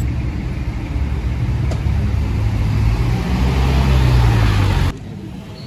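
Close road traffic: car engines running and tyres on the road as vehicles pull through a junction, one engine's hum growing louder about two seconds in. The sound cuts off suddenly about five seconds in.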